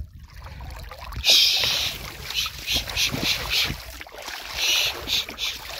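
Water sloshing and splashing around a person wading through waist-deep water, a quick run of splashes starting about a second in and another near the end, over a low rumble.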